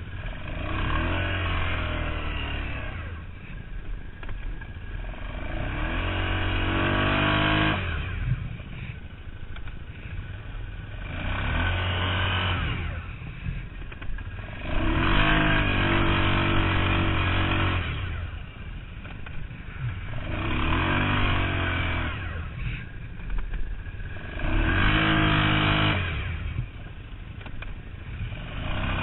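Arctic Cat ATV engine on a rubber track kit, revving up in repeated surges and easing off between them, about every four seconds, as the quad is driven through deep snow.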